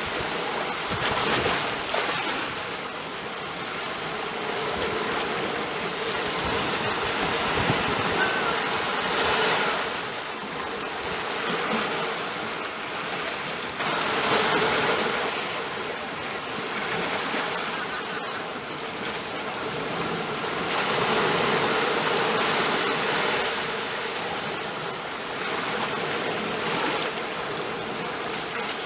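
Sea waves washing in, a steady rush of water that swells and eases every several seconds.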